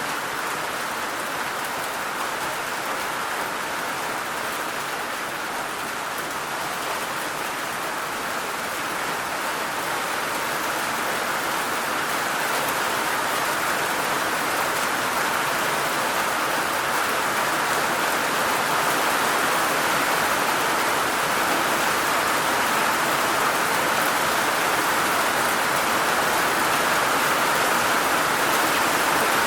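Heavy rain falling in a steady, dense hiss that grows slightly louder from about ten seconds in.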